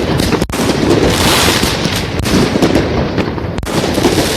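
Fireworks going off: dense, continuous crackling, with two sharp bangs standing out about half a second in and again later on.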